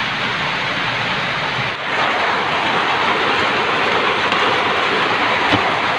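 Heavy rain pouring down in a steady, loud hiss, with a single knock near the end.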